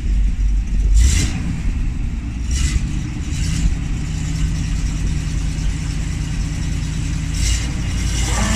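Ural army truck's engine running low and steady under load while it pulls a car stuck in a flooded mud track out on a taut cable. A few short hisses come and go over the rumble.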